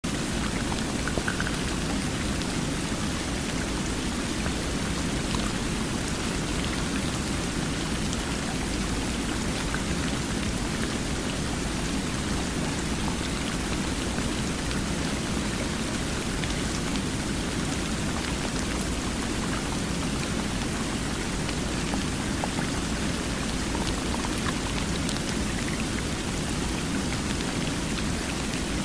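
Flowing water: a steady, even rush that does not change, with faint small splashes in it.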